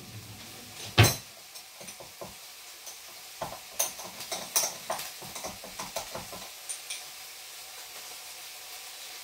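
Mince frying in a wok, a faint steady sizzle. About a second in there is one loud knock, then a run of sharp clicks and clatters of kitchen utensils over the next few seconds before only the sizzle is left.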